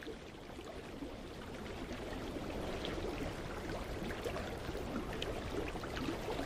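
Mountain creek running over rocks, a steady rush of water that swells slightly over the first couple of seconds.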